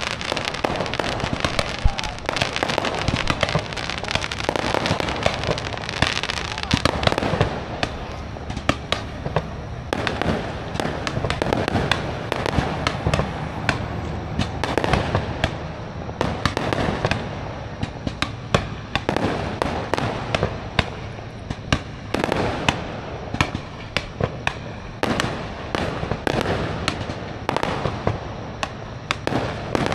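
Aerial fireworks display: a continuous barrage of shell bursts, rapid overlapping bangs and crackles with no pause.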